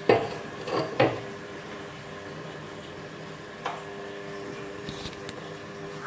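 A dish knocking twice against a clay cooking pot, about a second apart, just after coconut milk has been poured in, then a fainter knock later on. A faint steady hum runs underneath.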